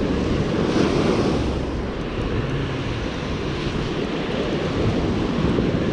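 Surf washing on a beach with wind buffeting the microphone: a steady, rumbling noise that swells and eases.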